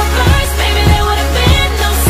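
Pop-style music with a steady beat, about one and a half beats a second.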